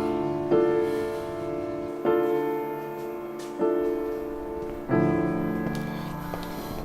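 Background score of slow piano chords, a new chord struck about every one and a half seconds and left to ring and fade.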